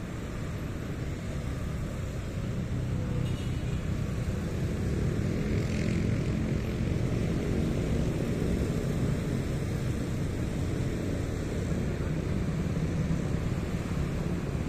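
Motorcycle being ridden: steady wind rush on the microphone mixed with engine and road noise, growing somewhat louder a couple of seconds in.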